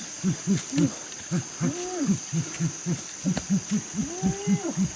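A rapid series of short, low hooting calls, several overlapping at about four a second, with a few longer hoots that rise and fall mixed in, over a steady high-pitched insect drone.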